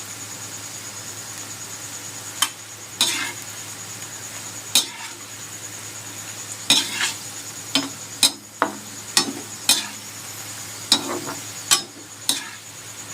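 A metal utensil knocking and scraping against cookware, as in stirring or serving: about fifteen sharp clinks at irregular intervals, some ringing briefly, over a steady low hum.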